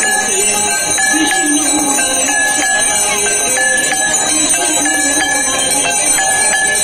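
Bells ringing over and over in a steady rhythm during a Hindu aarti, with voices singing underneath.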